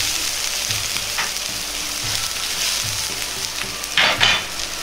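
Salted water at a rolling boil in a wok on a gas burner, a steady bubbling hiss around freshly added okra. A brief louder burst of sound comes near the end.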